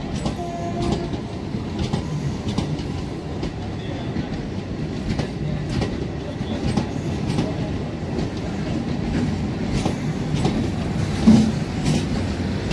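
Coaches of a MEMU electric multiple-unit train rolling past close by, with a steady rumble and repeated clacks of the wheels over the rail joints.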